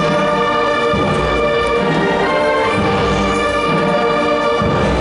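Brass band playing sustained chords over a low drum beat that falls about once a second, like a slow procession march.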